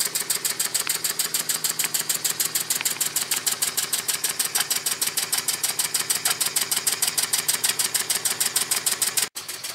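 Miller toy steam engine, a small single-cylinder horizontal engine on an electric Bakelite boiler, running at speed with a rapid, even chuffing beat and light mechanical clatter. It cuts off suddenly near the end.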